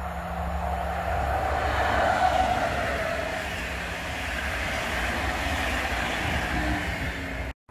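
Electric-hauled express passenger train passing at speed: the locomotive's rush builds to a peak with a tone that dips in pitch as it goes by, then the coaches' wheels rumble steadily along the rails. The sound cuts off abruptly near the end.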